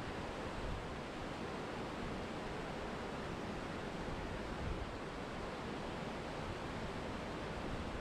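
Waterfall water rushing in a steady, even roar of white noise.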